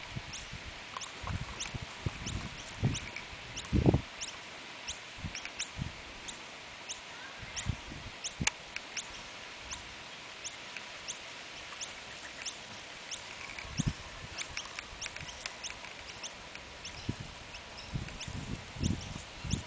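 Empty plastic water bottle knocked and crinkled by a sulphur-crested cockatoo's beak, giving a few dull knocks, the loudest about four seconds in. Behind it, short high-pitched chirps repeat a few times a second.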